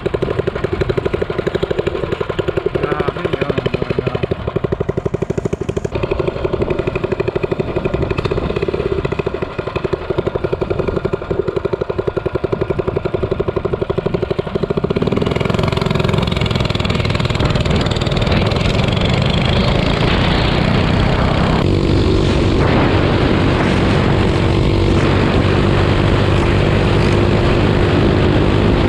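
Minibike engine idling with a rapid, even pulse, then, about halfway through, picking up to a louder, smoother run.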